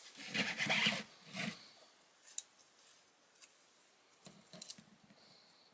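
Faint rubbing and scratching of fingers and small tools on a compact camera's delicate internal parts while a ribbon cable is worked toward its socket, with a few small sharp clicks later on.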